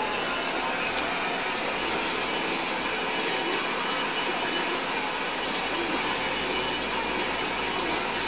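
Model Elliot Bay triple-expansion steam engine running: a steady hissing mechanical noise, with short sharper hisses coming irregularly about once a second.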